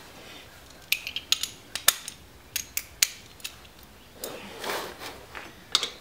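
Sharp metallic clicks and clinks of hand tools: a 14 mm socket being fitted to a ratchet wrench and set on a motorcycle's rear brake caliper bolt. A short scraping noise comes a little after four seconds in, with more clicks near the end.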